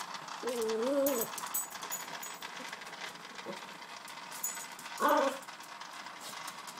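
Toy fox terrier vocalizing: a wavering whine that rises and falls about half a second in, then one short, sharp bark about five seconds in.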